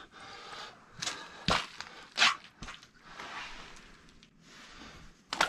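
A few short splashes and handling noises as a large walleye is released head-first down a hole in the ice, the loudest about two seconds in.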